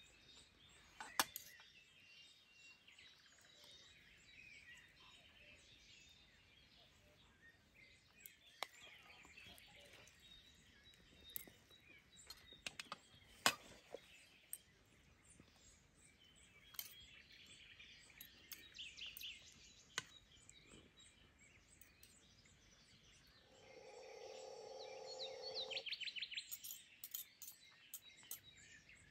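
Forks and spoons clicking and scraping against a metal serving tray of rice as people eat, with birds chirping in the background. Near the end comes a lower-pitched call lasting a couple of seconds.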